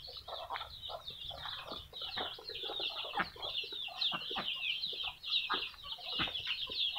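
Free-ranging farmyard chickens: a steady chorus of rapid, high peeping from chicks, with scattered short clucks from the hens below it.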